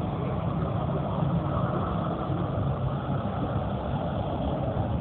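Jet engines of an Airbus A320 airliner running, heard as a steady rumble.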